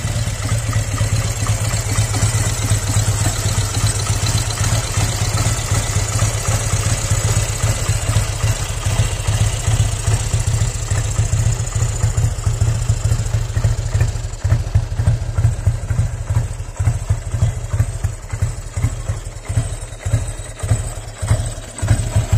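1941 Indian Scout's flathead V-twin engine idling, a steady low beat that turns into more distinct, uneven pulses in the last third.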